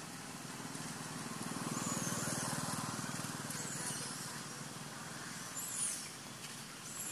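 Engine of a passing motor vehicle, a low pulsing hum that swells and then fades away. A few short high bird chirps over it.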